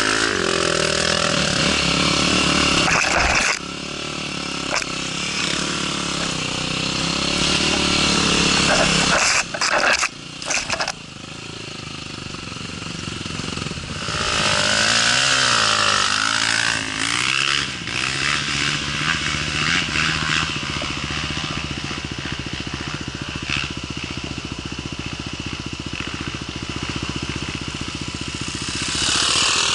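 Dirt bike engine running under the rider, revving up and down as it works over rough ground, with a cluster of sharp knocks about ten seconds in.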